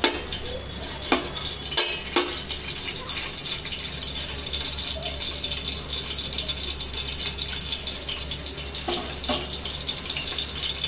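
Whole spices (cardamom, cloves and cinnamon) sizzling steadily in hot oil in an aluminium pot, with a few sharp clicks of a metal ladle against the pot, mostly in the first two seconds.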